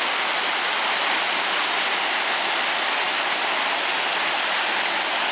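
A steady, even rushing noise that starts abruptly just before this moment and holds level throughout.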